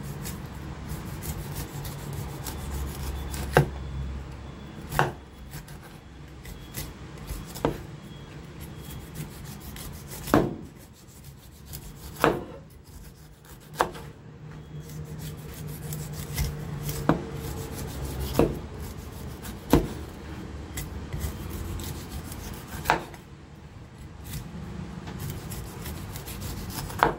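Cleaver slicing the skin off a whole pineapple, the blade knocking down onto a wooden cutting board at uneven intervals of a second or two, with scraping between the strokes.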